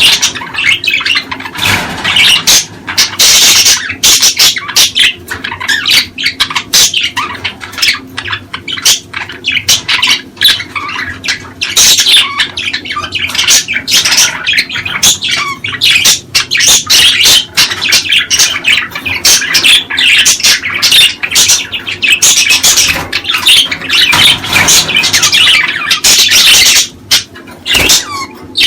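A flock of budgerigars chattering and squawking without a break, many quick high chirps overlapping.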